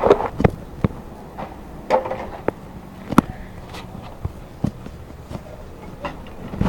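Irregular light knocks and taps, roughly one or two a second, over a low steady background.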